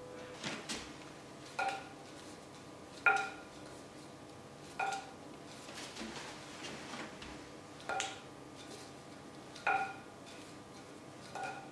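Wooden tonfa clacking as they are spun in the hands between forward and reverse grip: a sharp, briefly ringing knock about every one and a half seconds, some seven times.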